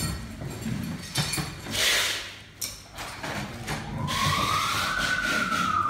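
Scattered clicks and knocks, with a short hiss about two seconds in. From about four seconds a siren's tone starts, gliding slowly up and then beginning to fall in one long wail.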